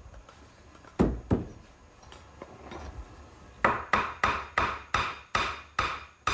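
Hammer strikes on a wooden door frame: two knocks, then an even run of about eight sharp strikes, roughly three a second.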